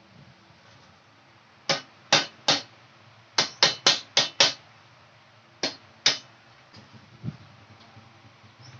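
Hammer blows on a BMX's seat clamp and seat post to knock them loose: ten sharp strikes in three bursts, three, then five in quick succession, then two, followed by a softer knock near the end.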